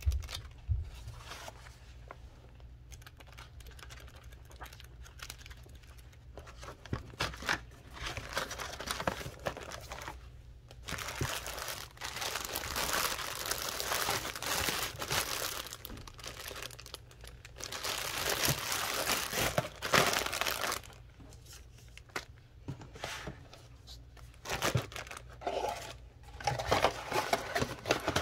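A clear plastic bag crinkling as it is handled, in several stretches of a few seconds each, with shorter rustles and small knocks of paper and cardboard near the end.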